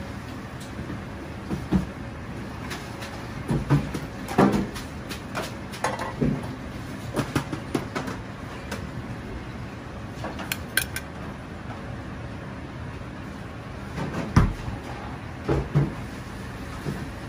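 Food-prep handling on a plastic cutting board and steel counter: scattered irregular taps, knocks and rustles as rolls are wrapped in rice wafer paper and moved, over a steady background noise. The sharpest knock comes near the end.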